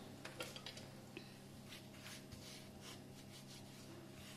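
Faint soft rubbing and light scratchy ticks of hands folding oiled methi paratha dough into layers, over a low steady hum.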